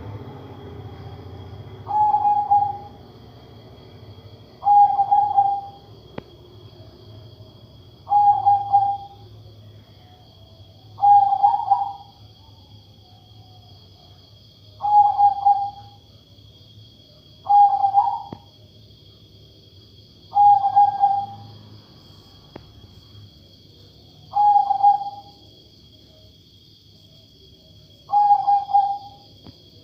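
Zebra dove (perkutut) of the Katuranggan Majapahit type cooing: a short coo of a little under a second, repeated about every three seconds, nine times. Its voice is unlike the usual perkutut song.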